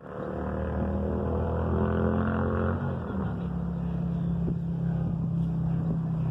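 Small boat's motor running steadily, its pitch dropping a little about three seconds in as it changes speed.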